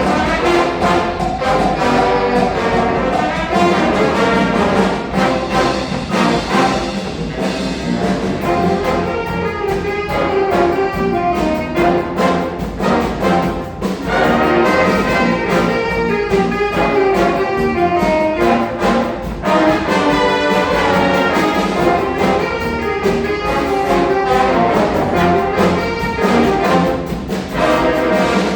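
High school band playing a brass-led arrangement, with trumpets and trombones and steady percussion hits underneath.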